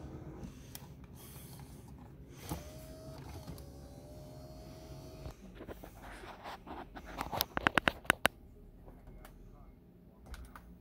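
Power seat motor of a 2005 Nissan Armada running, a steady hum with a whine, stopping about five seconds in. About two seconds later comes a quick run of sharp clicks, the loudest sounds.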